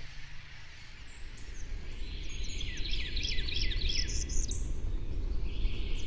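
A flock of royal terns calling: a run of many quick, high chirps, each sliding downward, starting about two seconds in, over a low steady rumble.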